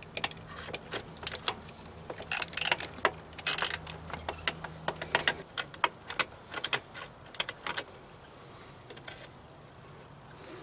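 Socket ratchet on an extension working a bolt at an ATV's brake caliper: irregular bursts of ratchet clicks and metal clinks, which stop about eight seconds in.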